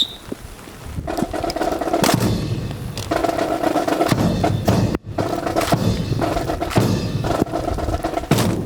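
A drill team's rifles being slapped, spun and struck in rapid rhythm, a dense run of sharp wooden clacks and knocks with short breaks, about four seconds in and again near the end. A short whistle blast opens it.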